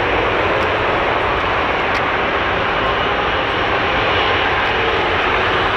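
Airbus A330-300's twin jet engines running steadily at low taxi thrust while the airliner turns on the runway: an even rushing hum with no spool-up.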